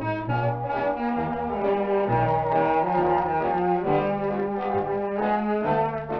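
Background music led by brass instruments, playing a run of held notes with no singing.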